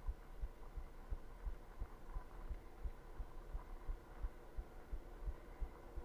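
Wind buffeting the microphone of a camera on a moving bicycle, in low irregular thumps several times a second, over a steady hum from riding along asphalt.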